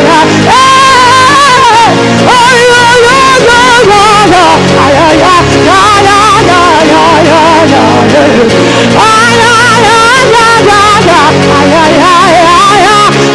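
Gospel worship music: a solo voice sings drawn-out melodic phrases with heavy vibrato over sustained instrumental chords, pausing briefly between phrases.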